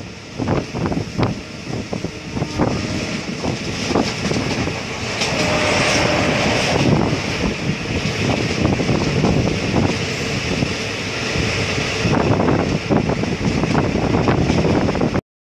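Train running along the track, a steady rumble with many irregular short knocks and clatters. It cuts off suddenly just before the end.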